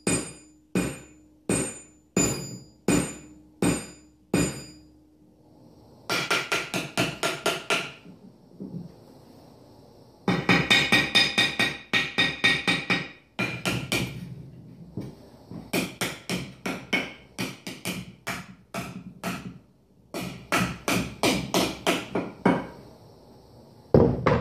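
Hammer blows on steel: first a string of ringing strikes about two a second, then, from about six seconds in, several quick runs of blows at roughly six a second with short pauses between them.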